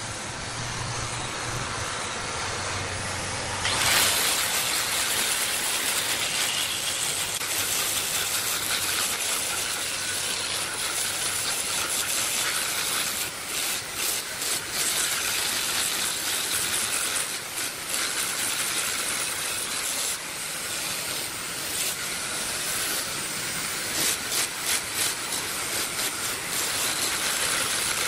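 Woodworking machinery working wood, a steady hiss of cutting noise. A low hum fades out about four seconds in, when the hiss gets louder, and a few brief fluttering dips come later.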